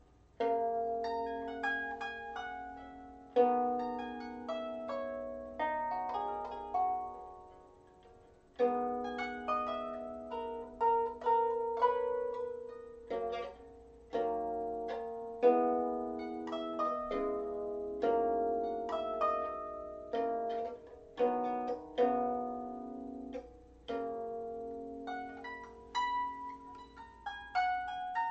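Small Celtic harp played by hand: plucked notes and chords that ring and die away in a slow tune, with a brief pause about eight seconds in.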